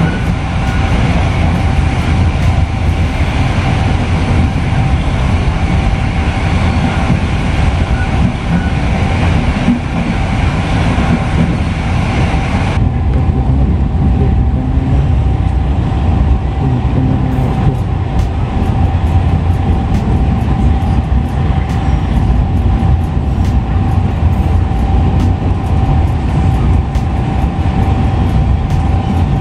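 Passenger train coach running, heard from inside the cabin: a steady low rumble with a constant hum. About halfway through the hiss above it drops away, and faint clicks come through from then on.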